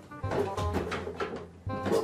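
Background music: a melody of short notes over a beat, with a few sharp percussive hits.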